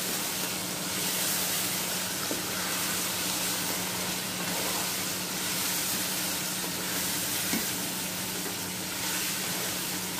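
Chicken and potato pieces sizzling in hot oil in a non-stick karahi while a spatula stirs them. The sizzle is a steady hiss, broken by a few light scrapes of the spatula against the pan.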